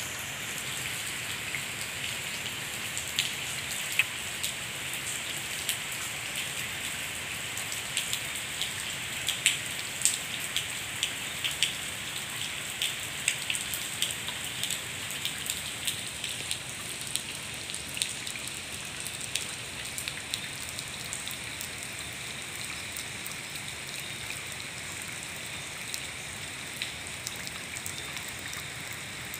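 Steady rain falling on a wet concrete yard and trees: an even hiss dotted with many sharp ticks of individual drops landing close by.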